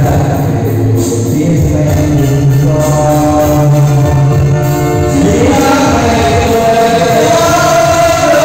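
Men singing karaoke into handheld microphones over a loud backing track played through a speaker system, with long held sung notes.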